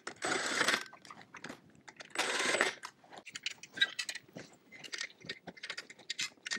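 Makita cordless impact driver (rattle gun) run in two short bursts, hammering cap screws home, followed by light metallic clicks and taps as the screws are done up by hand with a T-bar.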